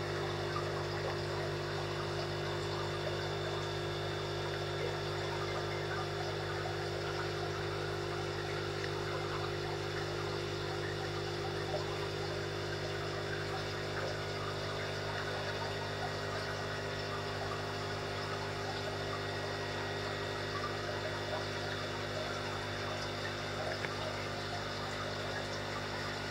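Aquarium filter pump running with a steady low hum, and water trickling and bubbling with faint crackles.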